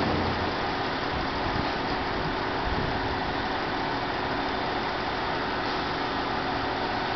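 Diesel engines of five coupled ALn 668 railcars idling in a steady drone.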